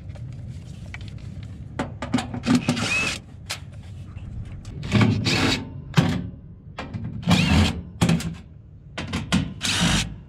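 Cordless DeWalt 20V impact driver backing out sheet-metal screws, running in about four short bursts with brief clicks between them.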